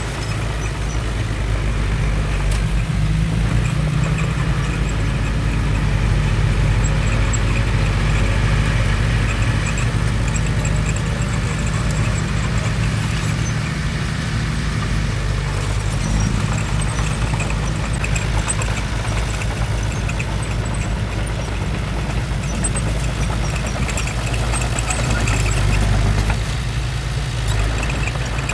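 Bulldozer's diesel engine running steadily, a low drone that swells slightly now and then.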